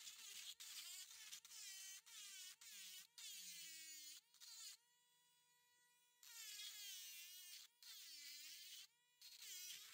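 Dremel rotary tool whining as its bit grinds into fossil shell rock. Its pitch sags each time the bit is pressed in and climbs back when it is eased off, with a few brief dropouts.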